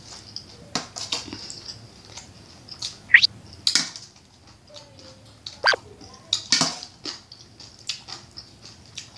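Close-up eating sounds: a metal utensil clinking and scraping in a metal tray of papaya salad, with chewing and mouth clicks. There are scattered sharp clicks, a few of them loud.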